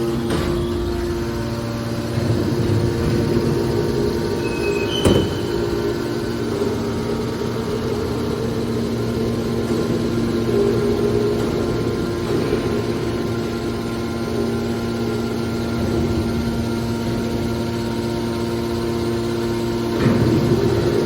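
Hydraulic metal baler running: a steady hum from its motor and pump, with a sharp knock about five seconds in and a brief noisier swell near the end.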